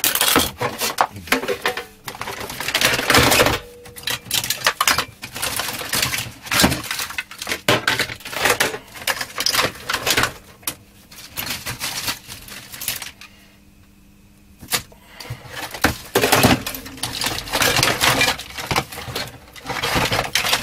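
Rummaging through boxes and drawers of small parts: irregular clattering and rattling of small hard objects, with a quieter spell of a couple of seconds about two thirds of the way through.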